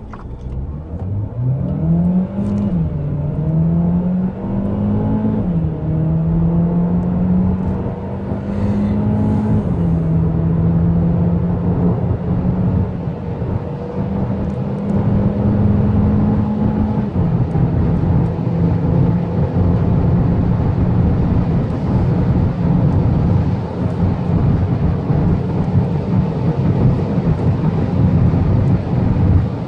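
Volkswagen Jetta 1.4 TSI's turbocharged four-cylinder engine heard from inside the cabin under hard acceleration from standstill. The engine note climbs and drops back four times as the gearbox shifts up, the shifts close together at first and further apart later. Tyre and wind noise grow as the car reaches high highway speed.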